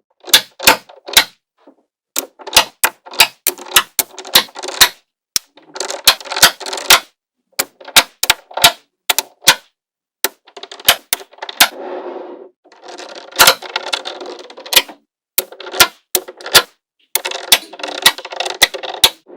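Small magnetic balls clicking sharply as they snap onto one another, in irregular single clicks and quick runs, with several second-long stretches of rattling as loose balls jostle and roll against each other.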